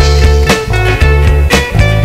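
Loud background music with a steady beat and strong bass.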